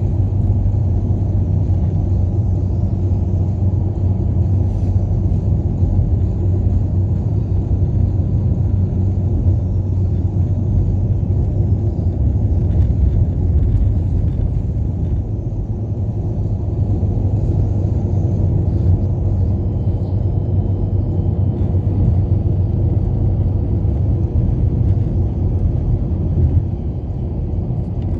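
Car driving at open-road speed, heard from inside the cabin: a steady low rumble of engine and tyre noise on the road surface.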